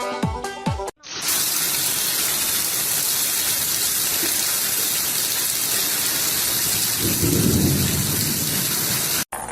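A steady, loud rushing noise, rain-like, with a deep rumble swelling about seven seconds in. Before it, a short stretch of electronic music cuts off about a second in.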